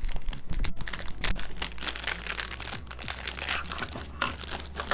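Packaging crinkling and rustling in irregular bursts as it is handled and opened by hand.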